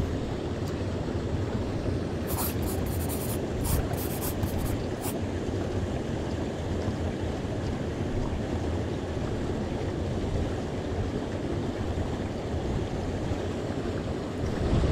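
Steady rush of water pouring over a small weir into a pool, with a run of short high ticks a couple of seconds in.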